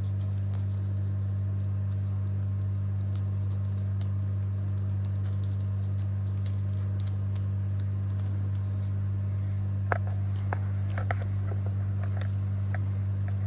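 Steady low electrical hum, with a few light clicks and taps of laptop parts being handled and fitted back together about ten seconds in.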